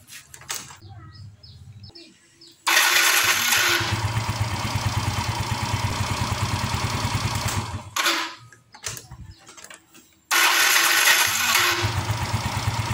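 Yamaha Mio M3 scooter's 125 cc single-cylinder engine starts a few seconds in, runs for about five seconds and is switched off with a couple of short bursts as it stops. About two seconds later it starts again and runs. The shutdown is the moment the engine kicks back slightly and turns the starter motor through its one-way gear, which the mechanic blames for a rough growl from a worn starter motor.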